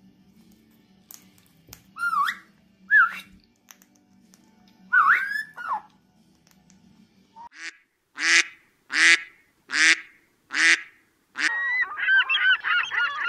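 A parrot gives a few short whistles that rise and fall in pitch, then waterfowl calls take over: five loud calls about three-quarters of a second apart, then many birds calling over one another.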